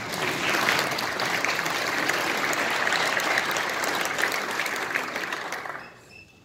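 Audience applauding, starting sharply and dying away about six seconds in.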